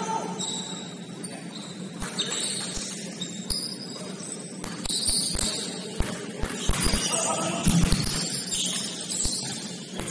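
Basketball shoes squeaking on a hardwood court in short high chirps, with a ball bouncing several times, most often in the second half. The sound is set in a large echoing gym.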